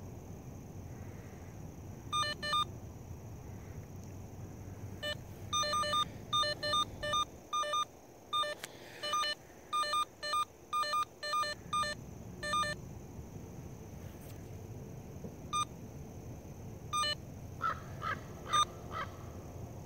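Handheld underground cable locator receiver beeping in short, sharp beeps as it picks up the tracing signal on the buried wire. The beeps come singly and in quick pairs, densely for about ten seconds, then only now and then. Near the end there are a few short, higher chirps.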